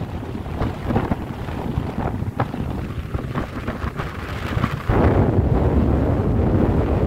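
Wind buffeting a phone microphone, crackling in gusts, then a stronger, deeper gust sets in about five seconds in and holds.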